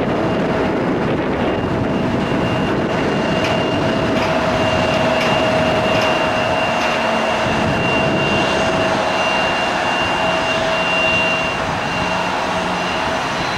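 McDonnell Douglas MD-11F freighter's three jet engines running at taxi power as it lines up for takeoff: a steady rushing hum with two held whining tones, one middling and one high.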